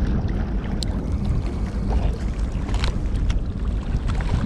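Wind buffeting the microphone, a steady low rumble, with a few light sharp clicks.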